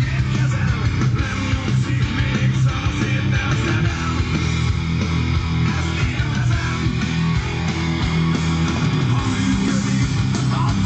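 Guitar-driven rock music with bass, played at steady volume through a homemade stereo amplifier and a wooden-cabinet loudspeaker.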